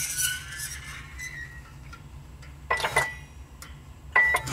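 A few sharp metallic clinks, some ringing briefly, from a Ford tractor 5-speed transmission's gears and pull gauge as a rope wound on the output gear is pulled to check bearing preload. The preload is far too tight.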